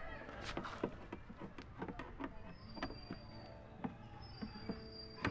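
Scattered light clicks and taps from a screwdriver working at the screws in a washing machine's plastic base.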